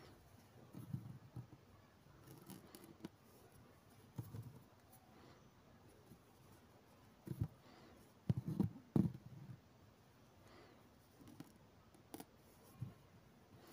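Faint rustling and soft knocks as a needle and thread are worked through fabric stretched in an embroidery hoop, with a cluster of louder knocks a little past the middle.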